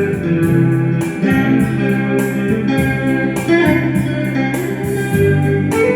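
Instrumental music: a guitar playing a slow romantic melody over a keyboard backing with a steady beat.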